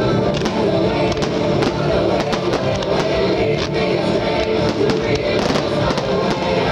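Loud music accompanying a fireworks display, with repeated sharp firework bangs and crackles cutting through it.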